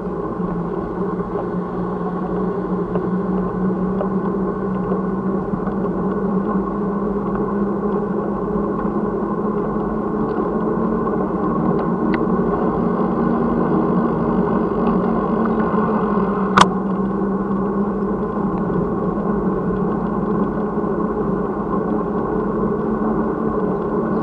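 Steady noise of a bicycle ride heard through a bike-mounted action camera's microphone: tyre and wind noise over a steady low hum, with one sharp click about sixteen seconds in.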